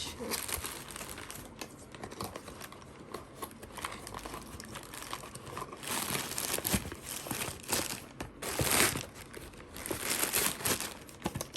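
Packaging crinkling and tearing in irregular bursts as a newly delivered bottle is unwrapped by hand, loudest about nine seconds in.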